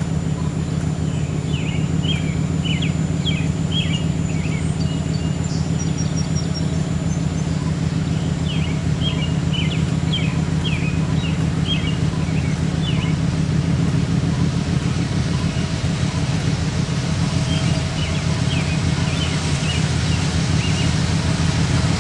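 Diesel locomotives of an approaching freight train heard from a distance: a steady low drone that swells slightly near the end. A songbird sings three short bursts of chirps over it.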